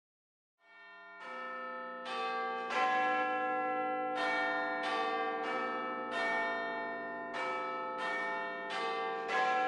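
Tower bells ringing a slow sequence of struck notes, about one a second, each ringing on into the next. They come in out of silence just under a second in.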